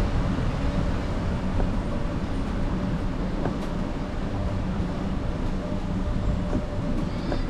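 Steady low rumble of vehicle traffic, with a few light clicks.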